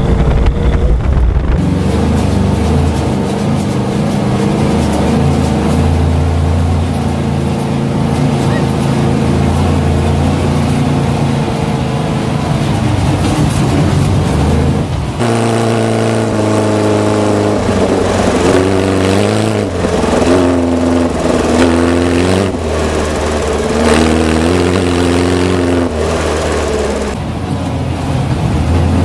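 VW Beetle off-road cars' air-cooled flat-four engines running while driving over desert dirt, with wind and road noise. At first the engine holds a fairly steady note. About halfway through, the sound changes to inside a car's cabin, and the engine rises and falls in pitch several times as it revs up and back off.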